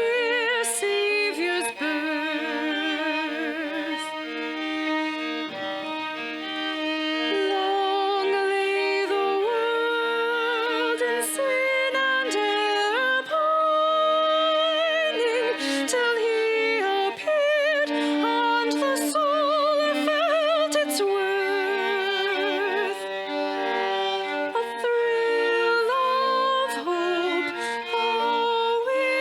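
Live music from a small church worship band playing a song: a wavering vibrato melody over steady held chords.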